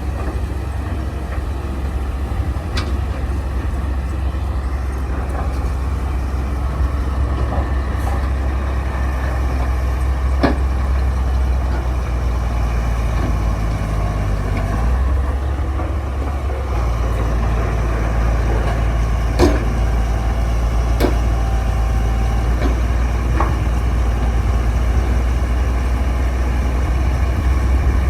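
Bulldozer's engine running steadily under work, its low note shifting about halfway through, with a few sharp knocks over the top.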